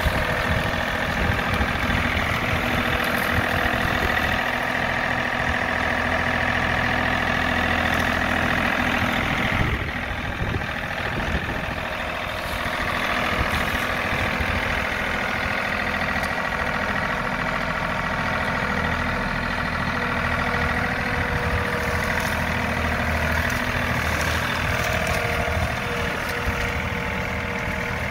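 John Deere 3038E compact tractor's three-cylinder diesel running steadily as the tractor drives, with a brief dip in level about ten seconds in.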